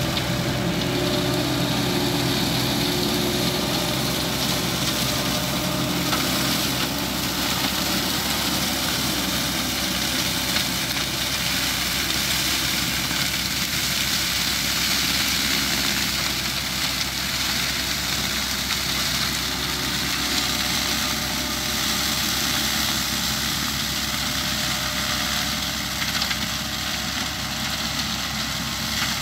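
Landini 10000 tractor's diesel engine running steadily under load as it drives a Kirchner PTO mulcher through tall dry grass and weeds, with a steady hiss over the engine note. It grows slightly quieter near the end as the tractor draws away.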